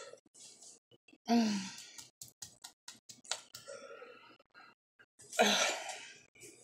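A woman groaning and sighing in discomfort from a mouthful of hot-sauce-soaked pancake: a breathy groan falling in pitch about a second in, a few faint clicks, then a heavy sigh near the end.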